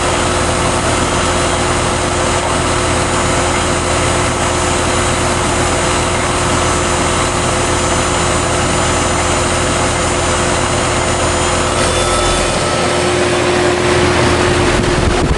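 2005 Goodman GSH13 2-ton heat pump outdoor unit running in heating mode: the compressor's steady hum under the whoosh of the condenser fan, an even mechanical drone.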